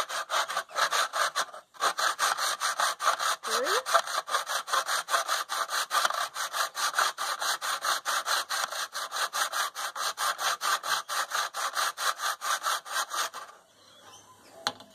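Hand saw cutting through a fly-screen frame piece in a plastic mitre box, with rapid, even back-and-forth strokes and one brief pause about two seconds in. The sawing stops about a second and a half before the end as the cut finishes.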